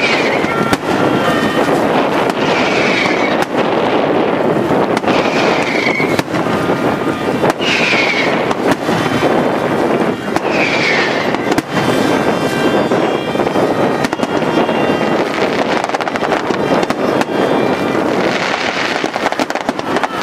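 Daytime aerial fireworks barrage: a dense, continuous run of rapid bangs and crackle. About five short falling whistles cut through it over the first half.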